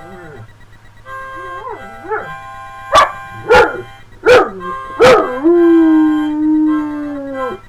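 A harmonica plays sustained chords while a dog sings along. The dog gives a short rising-and-falling whine, then four sharp, loud yelps about two-thirds of a second apart, then one long howl that slowly sinks in pitch near the end.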